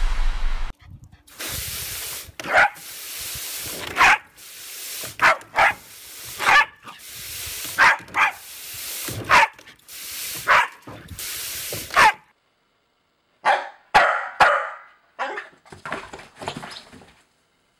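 A corgi barks in short, sharp barks about once a second, about ten in all, over the steady hiss of a garden hose nozzle spraying water into a plastic kiddie pool. The spray stops abruptly about twelve seconds in, and a few sharp knocks and short scattered sounds follow.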